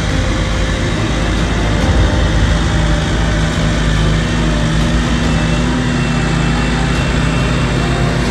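Massey Ferguson 291 tractor's diesel engine running steadily as the tractor drives close past, towing a loaded earth scraper.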